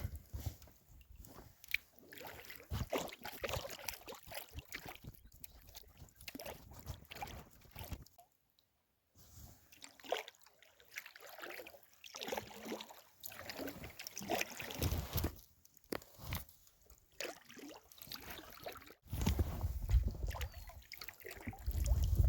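Packraft paddle dipping into a stream, with irregular splashes and water trickling and dripping off the blade. Near the end a low rumble of wind on the microphone comes in.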